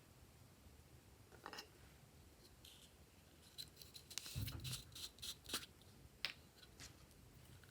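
Glossy slime being squished and stretched by hand, making scattered sticky clicks and small pops that bunch together a little past halfway.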